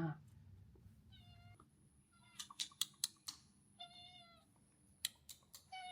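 A cat meowing twice, two short high meows a little under three seconds apart, faint. A few sharp clicks come between the meows and a couple more near the end.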